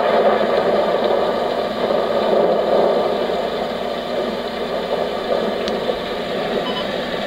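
Homedics SoundSpa Rejuvenate sound machine playing its thunder setting through its small speaker at high volume: a steady, even rushing noise that is really overpowering.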